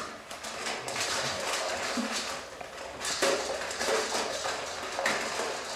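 Two American Staffordshire terriers eating from stainless-steel bowls on a metal stand, with a continuous run of irregular clinks and rattles as their muzzles knock the metal bowls.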